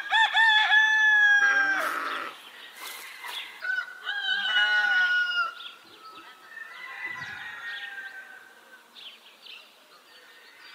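Animal calls: three long, wavering cries, the first and loudest at the start, the last fainter.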